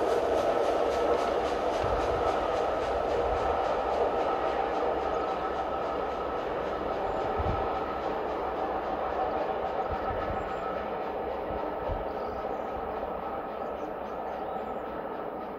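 Steam-hauled passenger train behind the LMS Princess Coronation Pacific Duchess of Sutherland running away along the main line: the rumble of its wheels on the rails, with a steady hum of a few held tones and occasional low knocks, fades steadily as it recedes.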